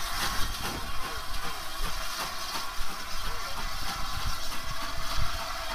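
Steam hissing from a GWR 4200-class 2-8-0 tank locomotive, over the low rumble of a slow-moving train, with faint squeals that waver in pitch.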